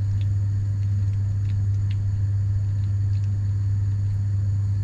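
A steady low hum, the loudest sound, with a thin stream of water trickling from a plastic bottle into a mixing bowl of tempura flour beneath it.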